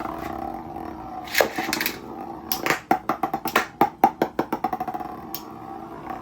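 Two Metal Fight Beyblades, Storm Pegasis and Lightning L-Drago, spinning in a stadium with a steady whir, clashing in a fast run of sharp clacks about halfway through, with a few single hits before and after.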